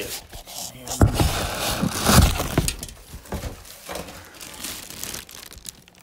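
Clear plastic wrapping crinkling and rustling as a ceiling fan motor is handled and turned. Two louder handling bumps come about one and two seconds in, and the crinkling thins out near the end.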